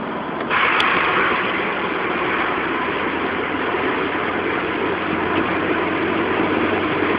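Cabin noise of a Nissan 200SX with a 1.8-litre turbo engine at motorway speed: engine, road and wind noise as a steady rushing sound. It jumps louder about half a second in.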